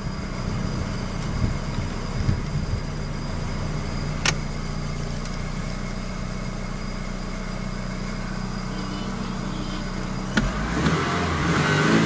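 Mitsubishi Galant VR-4's turbocharged 4G63 inline-four idling steadily just after starting on a freshly rewired fuel pump relay connector; it keeps running, a sign that the pump is getting power through the new connector. A single sharp click comes about four seconds in, and near the end the engine is revved up.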